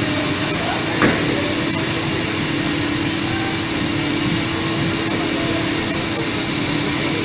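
Serkon MC50 automatic CNC fabric cutter running. A steady blower drone, typical of its vacuum hold-down table, carries a constant hum, with the cutting head working along the gantry. A single sharp knock comes about a second in.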